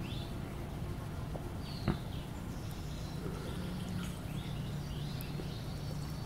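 Small songbirds chirping faintly and intermittently in short high calls, with one sharp click a little under two seconds in.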